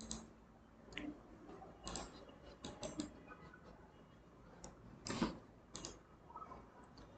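Faint, scattered clicks of a computer mouse, about eight in all, the loudest about five seconds in, as the slideshow pen menu is opened and the ink marks are erased.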